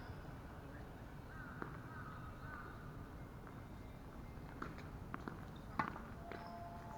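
A few sharp knocks of tennis balls being hit or bouncing on the court, the loudest about six seconds in, over a low steady background.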